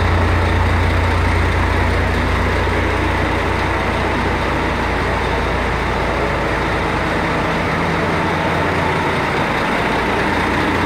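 A heavy truck's diesel engine idling steadily, a low even hum.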